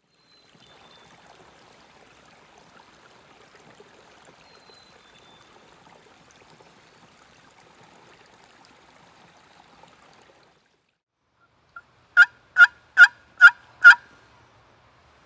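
A small woodland stream trickles faintly for about the first ten seconds. Then a Lynch Foolproof wooden box turkey call gives five loud, sharp yelps about 0.4 s apart, its paddle lid drawn across the edge of the box.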